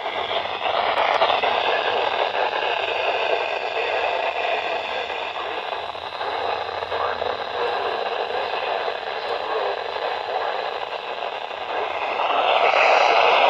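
Static hiss from a weather radio receiver on a weak, distant NOAA Weather Radio signal, mostly noise. The hiss grows louder about 12 seconds in.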